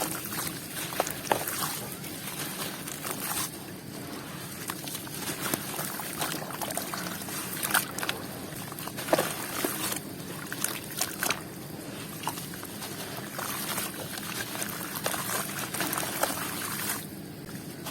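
Crunchy dried balls and squares crumbling in water: a steady wet hiss with irregular small crackles and a little sloshing.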